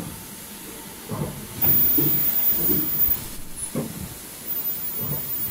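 Machinery of an N95 folding-mask production line running with a steady hiss and a rhythm of low thuds. It gets louder for about a second and a half, with a very high whine, about a third of the way in.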